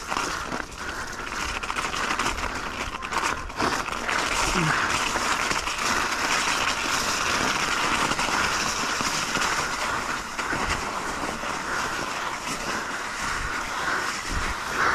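Yeti mountain bike ridden over snow and mud: a steady rushing noise of the tyres rolling and the bike moving over the trail.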